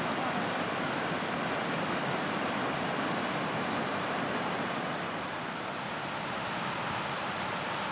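River water flowing over a stony bed: a steady rushing hiss with no distinct events.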